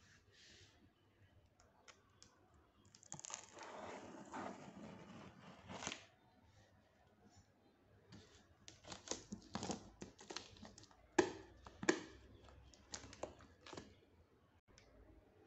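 Clear plastic stretch wrap on a cardboard carton crinkling and tearing as it is worked off. There is a stretch of rustling about three seconds in, then a string of sharp crackles in the second half.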